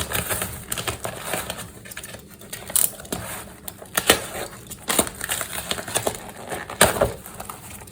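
A delivery parcel's packaging being torn open and handled by hand: irregular crackling and rustling, with a few sharper snaps.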